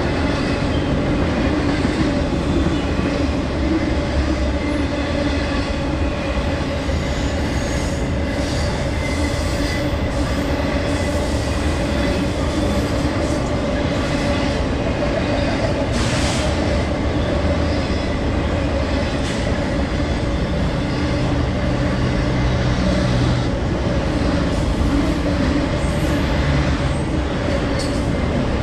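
BNSF intermodal freight train's container and trailer cars rolling past at steady speed: a continuous rumble of steel wheels on rail, with faint steady ringing tones over it and an occasional sharper knock.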